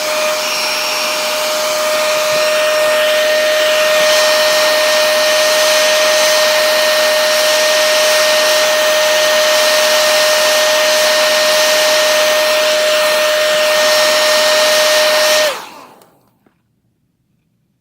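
Remington 1875-watt hair dryer running steadily, a rush of air with a steady whine, heating the glass to soften the screen adhesive. It is switched off about fifteen seconds in, the whine dropping briefly as it winds down to silence.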